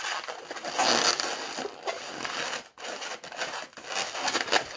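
A pink 260 latex modelling balloon rubbed and twisted in the hands, its latex scrunching and rubbing against itself as bubbles are twisted and locked together, loudest about a second in.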